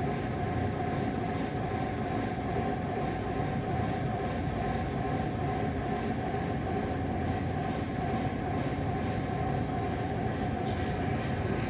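A steady mechanical rumble with a constant hum, with no distinct bangs in it; a faint brief rattle comes near the end.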